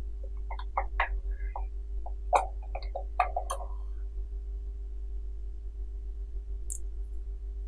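Computer keyboard keys being typed: a quick, uneven run of about a dozen clicks in the first four seconds. Then one faint click near the end, over a steady electrical hum.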